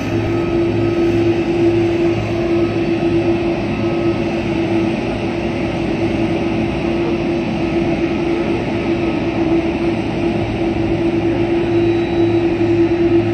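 Jet engines of the Air Force One Boeing 747 taxiing: a steady loud rumble and hiss with a constant humming tone.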